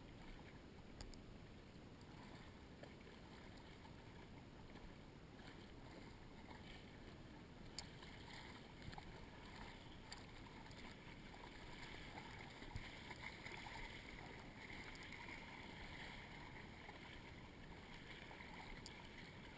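Quiet, faint water sloshing and lapping in shallow flooded swamp water, with a few soft clicks.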